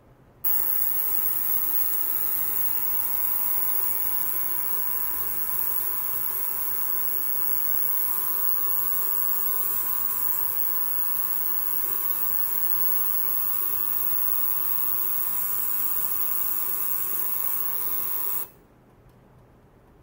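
Benchtop ultrasonic cleaner running: a steady high hiss with a buzz beneath it, switching on abruptly about half a second in and cutting off suddenly near the end.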